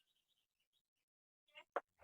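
Near silence with a few faint ticks, then one sharp click near the end.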